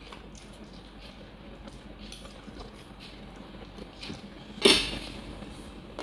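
Kitchen utensils and dishes clinking, light scattered clicks with one loud clatter a little past the middle that rings briefly.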